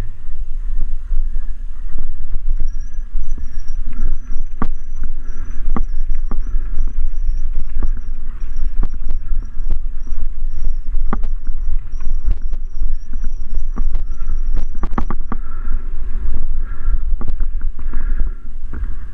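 Mountain bike riding down a rough trail: heavy wind rumble on the microphone, with frequent sharp clicks and knocks from the bike rattling over the ground.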